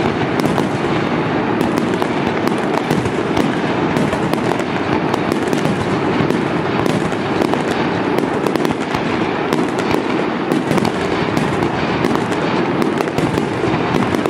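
Fireworks barrage: many aerial shells launched and bursting in rapid succession, a continuous dense din of booms with sharp cracks throughout.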